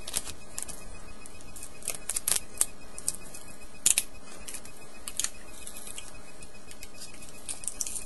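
Trading-card packaging being handled: irregular crinkling and sharp plastic clicks as cards are worked out of their sleeves and holders, the loudest click about four seconds in.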